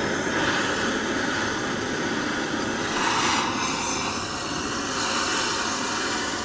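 Hand-held gas torch running steadily with an even hissing roar as its flame heats a sweated copper pipe joint to loosen the solder.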